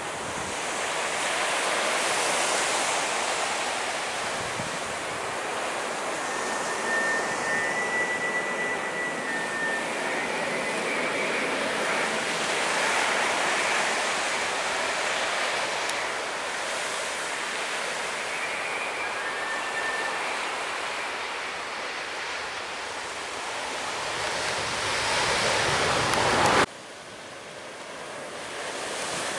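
Wide-body twin-jet airliner on low final approach, a steady jet rumble that swells as it nears, with a faint whine in the middle, mixed with surf and wind on the microphone. Near the end the sound drops off abruptly to a quieter wash of noise.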